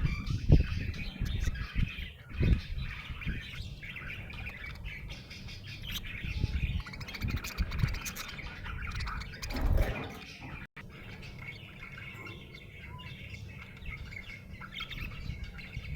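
Budgerigar chirping and chattering continuously, with several dull low thumps, the loudest sounds, in the first ten seconds and a brief break about two-thirds of the way through.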